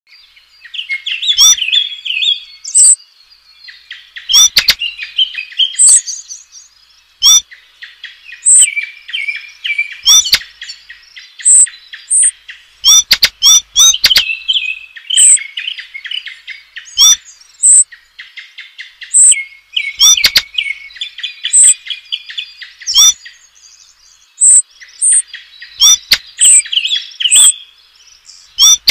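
A songbird singing a long, varied run of warbled phrases, with loud, sharp high notes breaking in every second or two.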